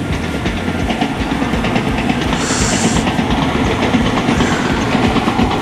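Fishing reel being cranked during a steady lure retrieve: a continuous whirr with fast, even ticking. A short faint hiss comes about halfway through.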